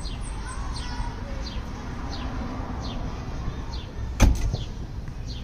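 Steering wheel being forced off its column by a steering wheel puller, with one sharp, loud crack about four seconds in as the wheel breaks free of the column splines.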